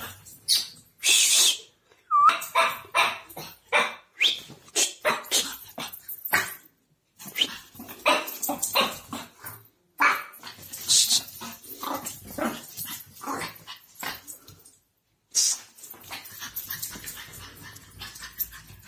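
Pug puppy barking and yipping in short bursts as it plays with a stuffed toy.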